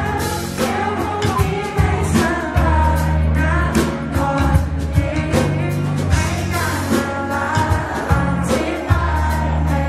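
Male pop singer singing live into a handheld microphone over an amplified backing with a steady drum beat and bass, heard through the PA from among the audience.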